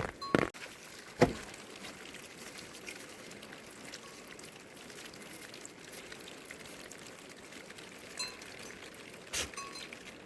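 Steady rain falling, an even hiss, with one sharp knock about a second in and a few faint clicks near the end.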